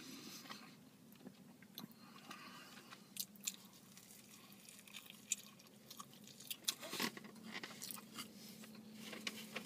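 A man biting into and chewing a barbecue beef sandwich: faint, scattered wet clicks and smacks of chewing.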